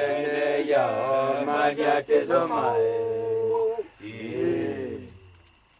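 Voices chanting a Bwiti initiation song, with long held, wavering notes, fading out about five seconds in.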